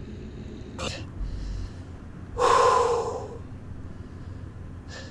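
A man's loud, strained gasp of breath, about a second long, as he hauls on a heavy load snagged on a magnet fishing rope, with a short click shortly before it over a steady low rumble.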